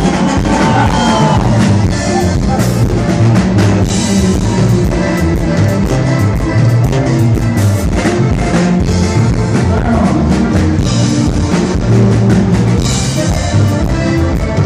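Live band playing loudly: a button accordion carrying the melody over a sousaphone bass line and a drum kit keeping a steady beat.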